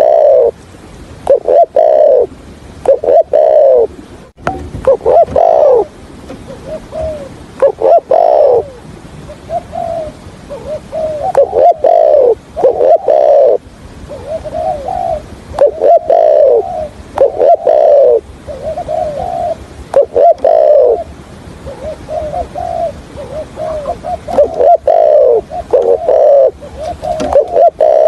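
Spotted dove cooing over and over, in short broken phrases of rounded coo notes with brief gaps between them.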